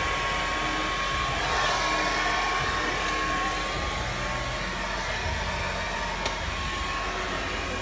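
Handheld hair dryer blowing steadily, a constant rush of air with a thin steady whine.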